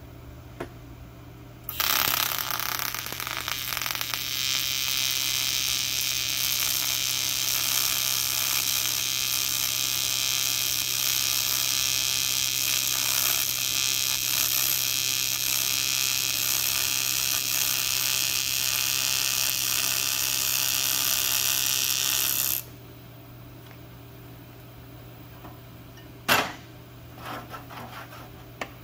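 TIG welding arc on an aluminium exhaust tube, a steady hiss that strikes up suddenly a couple of seconds in, runs for about twenty seconds and cuts off sharply when the arc is broken. A single sharp knock follows a few seconds later.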